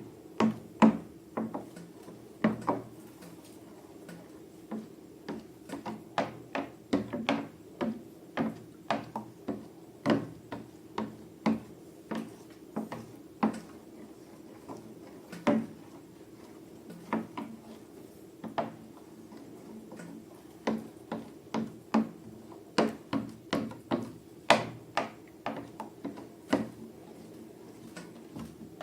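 Irregular sharp clicks and knocks of small objects being handled, one or two a second, over a steady low hum.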